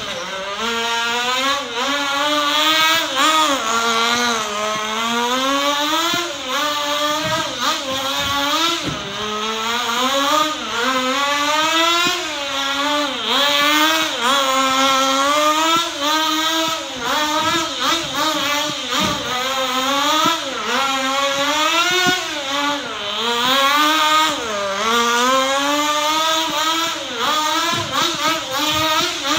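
Sportwerks Chaos 1/16 nitro RC buggy's small glow-fuel engine running hard around the track, a high buzz revving up and down every second or two as the throttle opens and closes through the corners.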